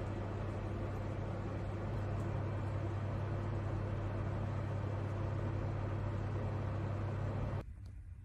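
A household electric appliance running with a steady hum and whoosh, switched off abruptly about seven and a half seconds in.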